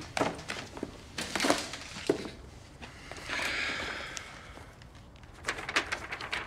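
Rustling and flapping of a thick stack of fanfold computer printout paper as it is handled and bent, with scattered sharp clicks and a longer rustle about three seconds in.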